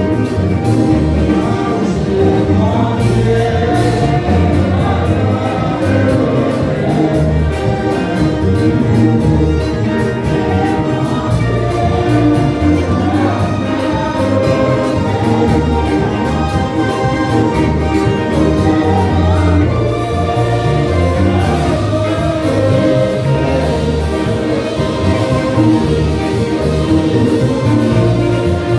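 Live church worship music: a worship team singing together into microphones over amplified band accompaniment with a guitar and a strong bass line, continuous and unbroken.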